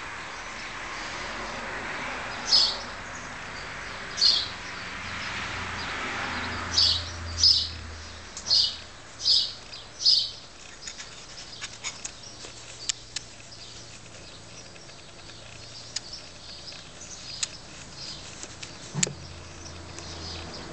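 A bird chirping: seven short, loud chirps over the first ten seconds, followed by scattered light clicks.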